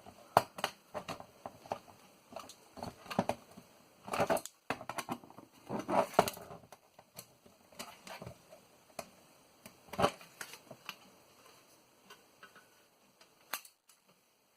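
Irregular clicks, taps and short scrapes of a floppy disk drive's parts being handled and pried during disassembly, with louder clatters about four, six and ten seconds in and only a few light ticks toward the end.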